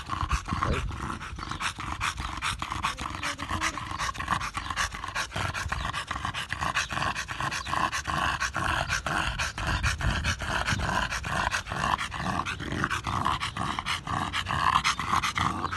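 A blue tri-colour bulldog-type dog panting fast and steadily with its mouth open and tongue out, the rapid breaths coming in an even rhythm.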